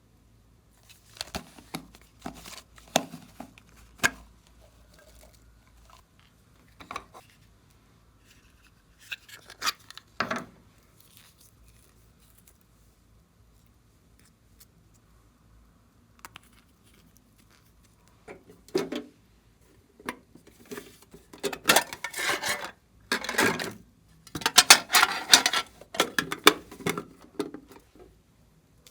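Glossy slime being handled: stretched, squished and folded by hand, with sticky clicking and crackling in irregular bursts. The bursts are scattered at first, then come thicker and louder near the end.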